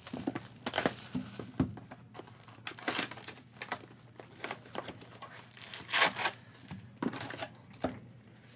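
Plastic trading-card wrapping crinkling and tearing as it is handled, in short irregular crackles.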